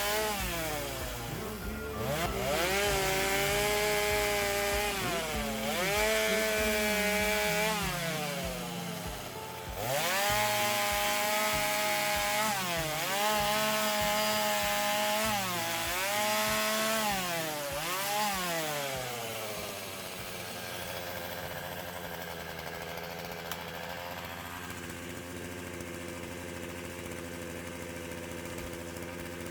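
Small petrol engine revving up and dropping back again and again, roughly every two seconds, then settling to a steady idle for the last third.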